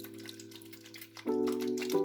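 Background music of soft, sustained chords, moving to a new chord just over a second in, with faint light ticks over it.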